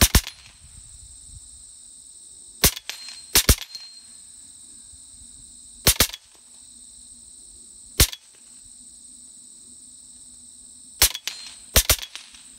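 LCS SK-19 .25-calibre PCP air rifle firing single shots: about eight sharp cracks spaced one to three seconds apart, a few in quick pairs. Steady high insect trilling runs behind.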